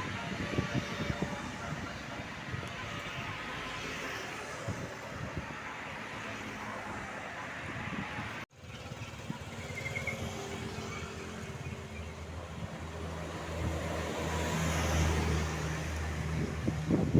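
Roadside traffic noise from passing vehicles, broken by a sudden dropout about halfway. In the second half a large bus engine hums low and grows louder as it comes nearer.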